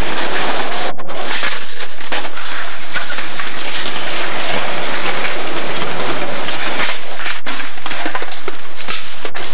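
Skateboard wheels rolling on concrete close to the camcorder, a loud, rough, steady noise with a few brief breaks.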